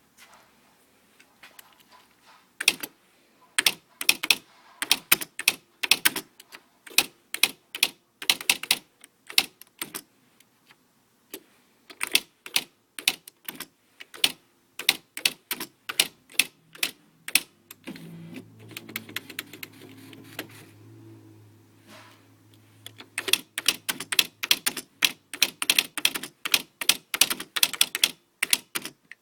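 Smith Corona SC 125 typewriter being typed on: quick, irregular key strikes at several a second, pausing briefly now and then. Midway through, a steady low hum runs for about four seconds under the strikes.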